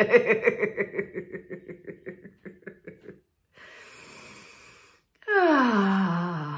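A person laughing on purpose in a laughter exercise: a fast run of 'ha' pulses that fades over about three seconds. Then a breath drawn in, and near the end a long voiced sigh sliding down in pitch.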